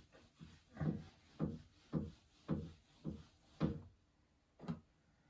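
Board eraser wiping a whiteboard in short back-and-forth strokes, about two a second, thinning to a couple of separate strokes near the end.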